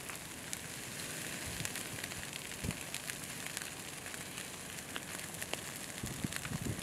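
Wildfire burning through brush and pine trees: a steady hiss with many scattered sharp crackles and pops, and a few low thuds.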